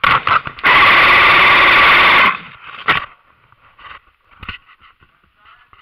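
Airsoft electric gun fired full-auto close to the microphone: one burst of about a second and a half, with a few sharp cracks just before it and one more about three seconds in.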